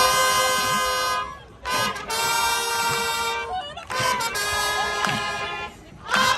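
Band brass section playing long held chords, three in a row with short breaks between, and a fourth starting at the end.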